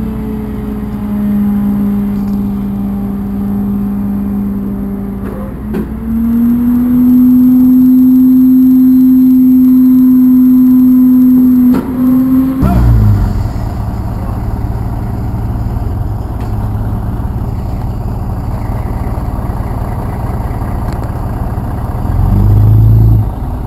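Heavy truck's engine running steadily while it hauls a flatbed trailer. The pitch rises about five seconds in and holds high for several seconds. About halfway through, the sound changes to a rougher, lower rumble that swells briefly near the end.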